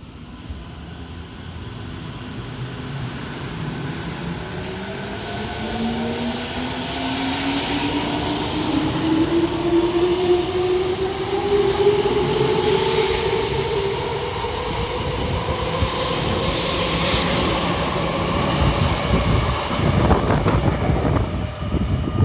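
Toyo Rapid Railway 2000 series electric train accelerating, its traction motors whining in a steadily rising pitch. The wheel and rail noise grows louder as the train draws past.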